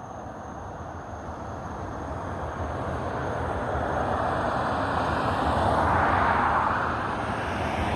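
A passing vehicle: a rushing noise that builds over several seconds, is loudest about six seconds in, then eases slightly.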